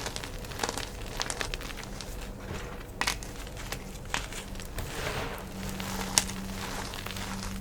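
Gym chalk being crushed and crumbled: a dry, crumbly crackle with a few sharp snaps as pieces break apart.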